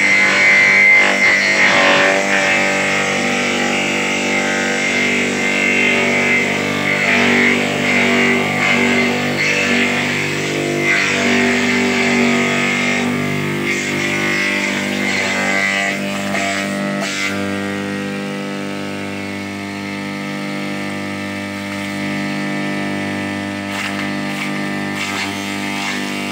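Background music led by a plucked guitar.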